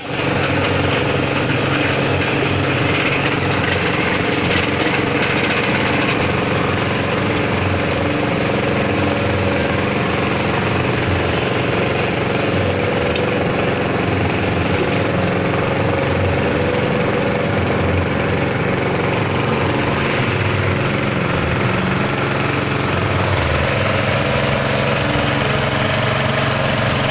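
D22 fish-feed pellet mill running steadily under its drive motor, a constant mechanical drone with an even hum of low tones and no change in speed.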